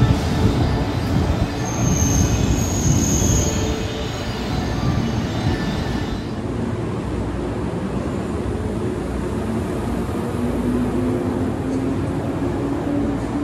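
Electric commuter train running alongside a station platform, wheels and rails rumbling, with a brief high squeal about two seconds in. The sound changes abruptly about six seconds in, and a low whine rises in pitch near the end as a train moves off.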